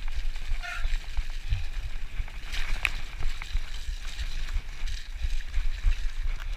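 Mountain bike riding fast down a muddy dirt trail: tyres churning and splashing through wet mud, with an uneven low rumble and knocking as the bike jolts over the rough ground.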